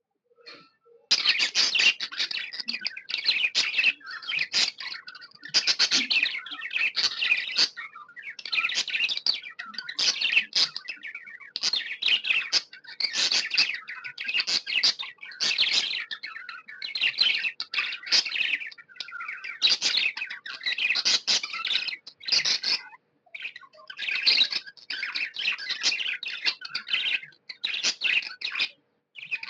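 Budgerigar chirping in rapid, busy runs of high chirps, starting about a second in, with short pauses between runs.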